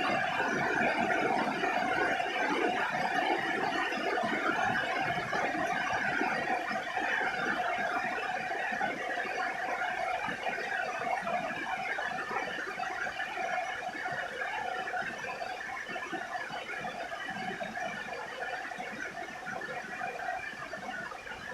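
Rain falling on a roof: a dense, steady patter of drops, with a faint steady tone underneath that fades out near the end. The rain eases slightly as it goes on.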